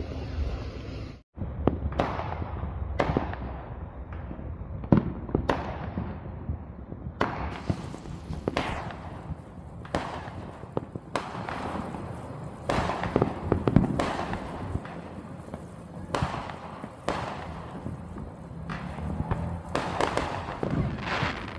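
Fireworks show: a string of bangs and crackling bursts at irregular intervals, each trailing off in an echo.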